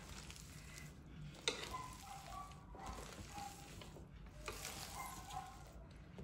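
Hand mixing and squeezing chopped greens and shellfish together on a plate: a faint, wet rustling and squishing, with one sharp click about one and a half seconds in.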